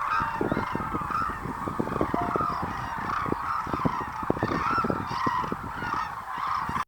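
A large flock of cranes calling, many overlapping honking calls at once.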